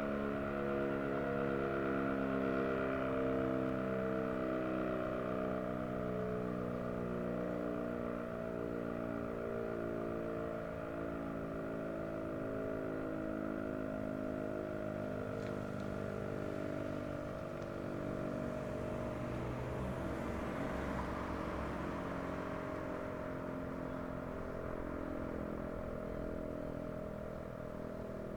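American Signal OM-117 omnidirectional siren sounding its steady full-alert tone: one held pitch that does not rise or fall, with a wavering undertone beneath it.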